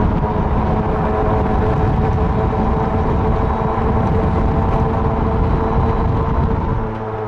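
Electric golf cart driving along at speed: wind rumbling on the microphone over a steady whine from the electric drive motor. The wind noise eases slightly about seven seconds in.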